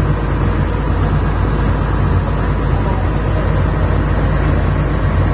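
Komatsu excavator's diesel engine running steadily, a continuous low drone with no change in pitch.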